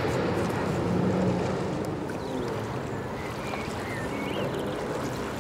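Steady outdoor background noise beside open water: a continuous low rumble and hiss, with a few faint high chirps around the middle.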